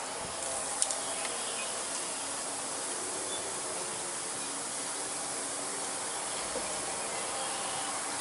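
A steady, even hiss with a faint hum underneath, and a light click about a second in.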